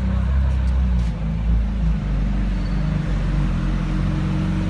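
Supercar engine idling steadily at close range, a low, even note.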